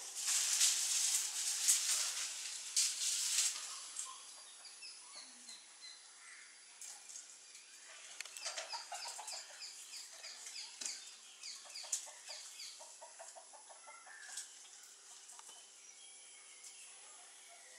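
Loud rustling for the first four seconds, then small birds chirping in runs of short notes repeated quickly.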